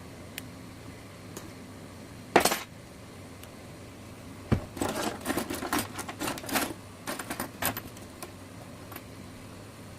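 Small hand tools and parts clicking and clattering on a work surface during phone disassembly: one sharp knock about two and a half seconds in, then a run of quick light clicks and clatters lasting about three seconds.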